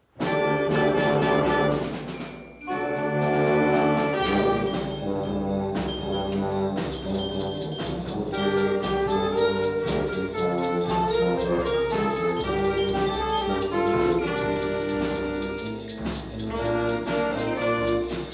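Middle school band of saxophones, low brass and drum kit playing a jazz-style piece, coming in on a loud chord right at the start. After a brief break about two seconds in, the horns carry on over a steady drum beat.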